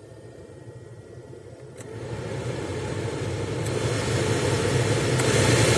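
Replacement heater blower motor and fan of a Hyundai Solaris running, the air rush growing louder in three steps as the fan speeds are switched up one by one, with a short click at each change. The flow is even, without noise or vibration, showing the new motor runs smoothly.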